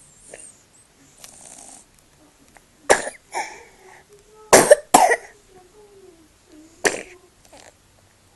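A baby with a cold coughing in its sleep: a sharp cough about three seconds in, a quick run of coughs around halfway and another near the end, with faint snuffly, congested breathing between them.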